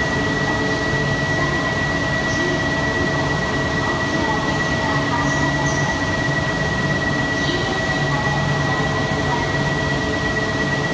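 E4 series double-decker Max Shinkansen standing at an underground platform with its doors open: a steady low hum from its onboard equipment, with a constant high-pitched whine running over it.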